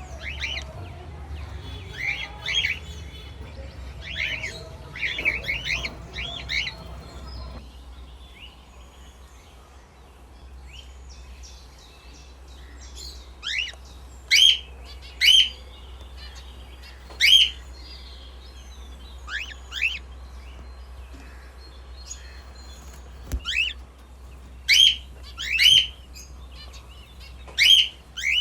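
Pet cockatiels and budgies chirping: a quick run of short chirps in the first seven seconds or so, then single loud chirps every second or two from about thirteen seconds in. A steady low hum runs underneath.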